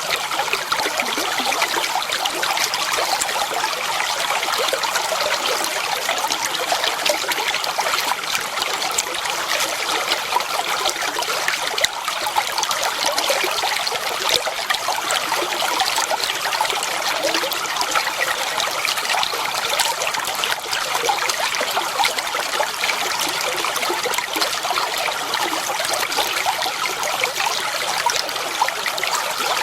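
Clear water flowing and trickling steadily, with fine bubbling and small splashes.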